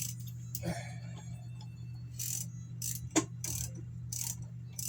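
A motorcycle jack being worked to lift a Harley-Davidson Shovelhead: a rhythmic scraping stroke about every two-thirds of a second, with one sharp click about three seconds in, over a steady low hum.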